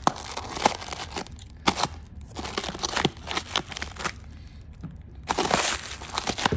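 Clear plastic stretch wrap being snipped with scissors and pulled by hand, crackling in sharp irregular snaps, with a longer stretch of dense crinkling a little after five seconds in.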